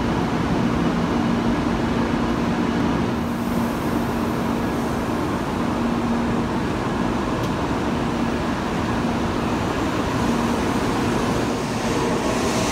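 N700-series Shinkansen bullet train at a station platform, a steady hum over broad running noise as its doors close and it starts to pull away. Toward the end, a higher hiss builds as the train gathers speed.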